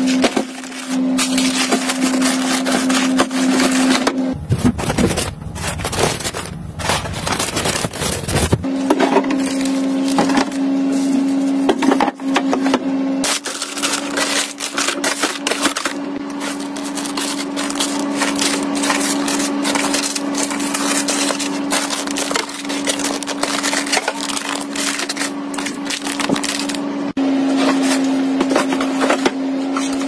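Frozen-food packaging and plastic freezer drawers being handled: dense crinkling, rustling and clicking of plastic bags and wrappers, with a steady low hum underneath. The texture shifts abruptly a few times.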